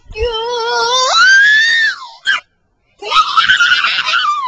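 A loud voice wailing and screaming: a long wail that rises steeply in pitch, a short squeak, then after a brief pause a harsh scream that falls in pitch.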